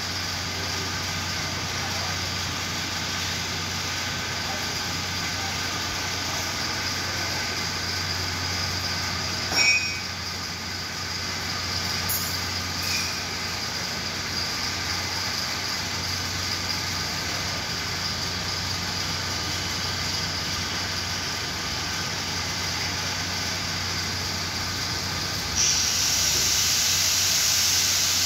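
Steady mechanical hum and hiss, with a single knock about ten seconds in. Near the end a louder, higher hiss comes on and holds.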